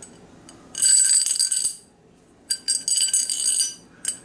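Something loose rattling inside a hollow white metal tube from a shelf-stand kit as it is shaken, in two bursts of about a second each, with a ringing, jingling tone: an object trapped inside the tube, whose end caps don't come off.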